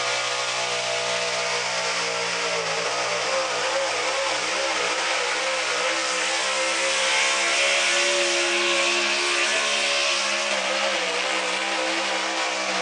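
Pulling truck's engine at full throttle under heavy load as it drags the sled down the pulling track, its pitch wavering, growing a little louder and harsher around the middle.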